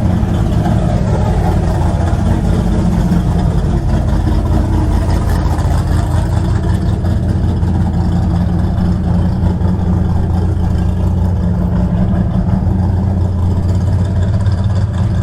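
A vehicle engine running steadily, with a loud, even low drone.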